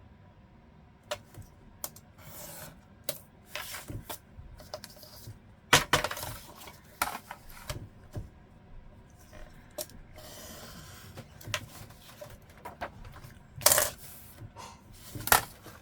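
Crafting supplies handled on a work table: irregular clicks and taps of small hard items set down, mixed with brief rustles of paper, with a couple of louder knocks.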